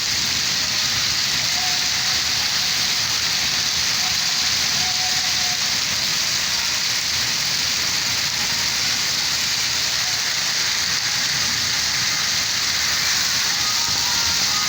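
Steady rain, an even hiss without pauses. A few faint short high notes sound over it, more of them near the end as a soft melody begins to come in.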